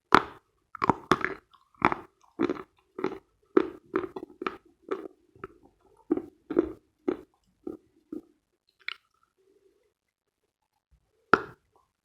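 Dense, dry Khrapovsky chalk being bitten and chewed: a sharp bite, then crisp crunching chews about twice a second that stop about eight seconds in, with one more loud crunch near the end.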